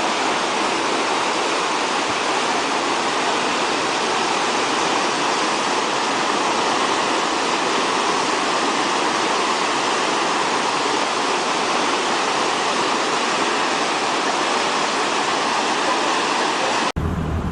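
Steady rushing of fast-moving floodwater. Near the end it cuts off suddenly, replaced by a different recording with a low rumble.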